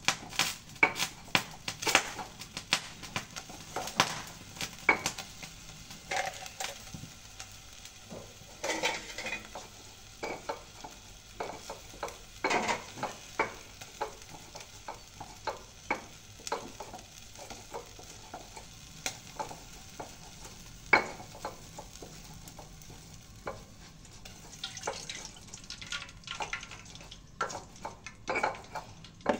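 A spatula stirring food in a frying pan, with irregular scrapes and knocks against the pan over a low sizzle.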